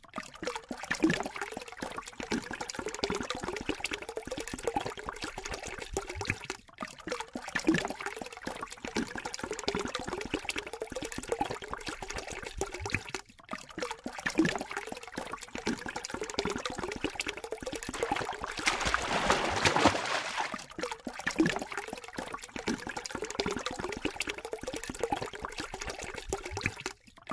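Thin stream of water trickling from a kitchen faucet into the sink, with small irregular splashes and taps as a cat paws at the falling water. A louder stretch of splashing comes about two-thirds of the way through.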